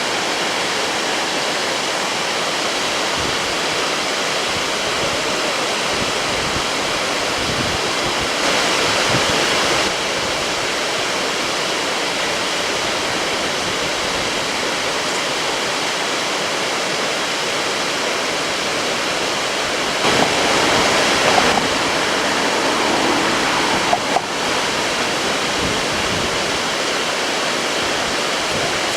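Steady rushing of a waterfall on a river, briefly swelling twice, about a third of the way in and again past two-thirds, with a few short bumps after the second swell.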